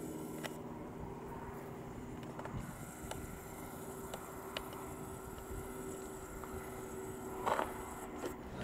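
Steady low hum of an aerial cable car's station machinery as the large cable wheel turns, with a few faint clicks and a brief rustle near the end.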